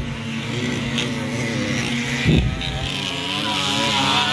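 Engines of small racing motorcycles running as they ride the dirt track, several at once, with their pitch rising over the last second or so as they accelerate. A brief low thump comes about halfway through.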